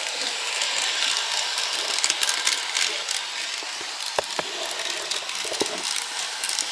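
Battery-powered N gauge toy train running on plastic track: a steady whirring motor and gear noise with irregular clicks and rattles from the wheels.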